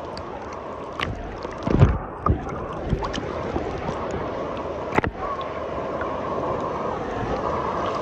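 Sea water splashing and sloshing close to the microphone, with several knocks and thumps, the loudest a little under two seconds in.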